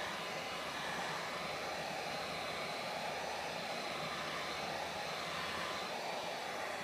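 Electric heat gun running with a steady, even hiss of blown air while it melts a beeswax, boiled linseed oil and turpentine paste into duck canvas.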